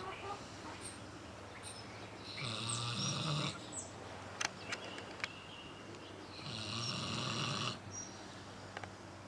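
A pig snoring in its sleep: two long snores about four seconds apart, each lasting about a second, with a few sharp clicks between them.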